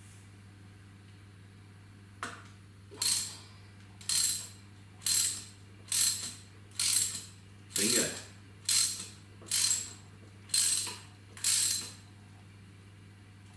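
Socket ratchet clicking through about eleven strokes, roughly one a second, starting about two seconds in. It is turning the pusher bolt of a homemade puller that draws the input shaft wear sleeve off a rotary screw compressor shaft.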